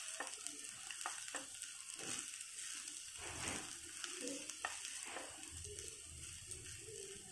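Egg fried rice sizzling in a non-stick pan as a spatula stirs and tosses it, with a few sharp taps and scrapes of the spatula against the pan.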